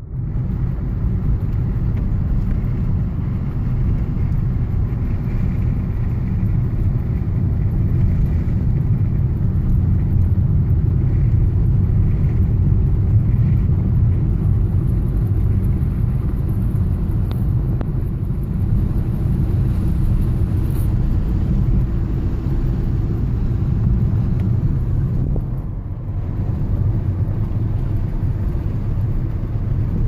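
Car driving on a paved road: a steady low rumble of tyres and engine heard from inside the cabin, easing briefly about 25 seconds in.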